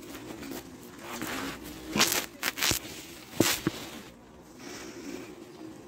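Handling noise: a few sharp rustles and clicks, in a cluster about two seconds in and again about three and a half seconds in, over a steady background hum.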